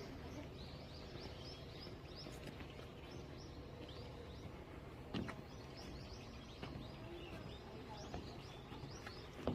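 Small songbirds chirping in runs of quick, high, short notes, several a second, over a faint steady background rumble; a sharp tap about five seconds in.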